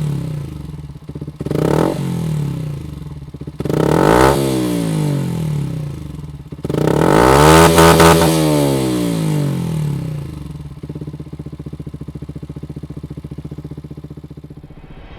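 Yamaha WR125X's single-cylinder four-stroke engine revved three times, each rev climbing and falling back, the third the longest and loudest, then dropping to a steady idle.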